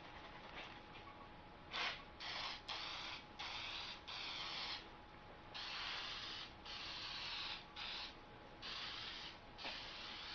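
Aerosol can of primer spraying in a series of short hissing bursts, about eight to ten of them, with brief pauses between, beginning about two seconds in.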